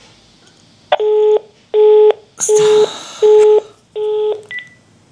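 Horn honked five times in short, even blasts, heard over a phone line. A hissing noise overlaps the middle honks, and a brief high beep follows near the end.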